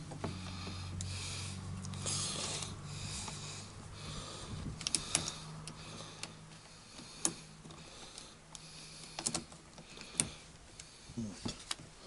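Saw chain of an angle-grinder chainsaw attachment being seated by hand on its guide bar: faint rustling and, from about halfway, a few sharp metallic clicks of the chain links, over a low hum that fades out.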